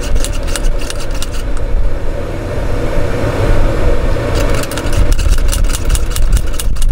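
A loud, uneven low rumble under quick runs of small plastic clicks and rattles as a muzzleloader powder bottle is handled: one spell at the start, a quieter stretch, then another from about four seconds in.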